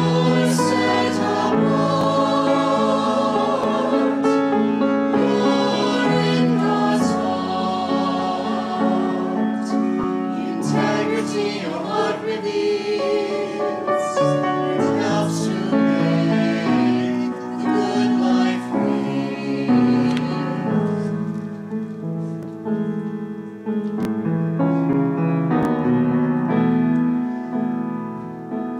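A small mixed choir of women's and men's voices singing in parts, with piano accompaniment.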